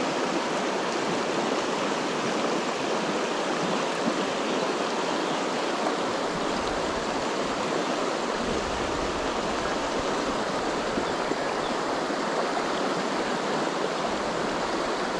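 Shallow stream running over a stony riffle: a steady, even rush of water.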